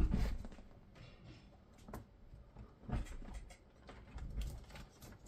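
Handling knocks and clicks as the Xbox Series X power supply and its cables are moved about on the bench. There is a thump right at the start, then knocks about two, three and four and a half seconds in.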